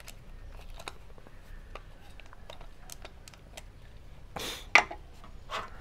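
Light plastic clicks and taps of a Canon EOS 750QD film SLR body and its battery compartment cover being handled. Near the end comes a short scrape, then a sharp click, the loudest sound, and a smaller click.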